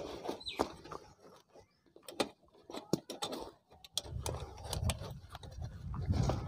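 Hands working a vinyl motorcycle seat cover over a rusted steel seat pan: light rustling and scraping with scattered sharp clicks and knocks. About four seconds in, a low rumble joins.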